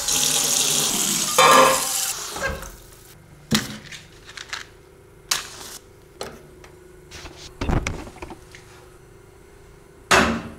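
Kitchen tap running hard into a sink over vegetables for about two seconds, then turned off. Scattered light clicks and knocks follow as a match is struck and a gas stove lit, with a louder knock near the end as an enamel saucepan is set down on the burner grate.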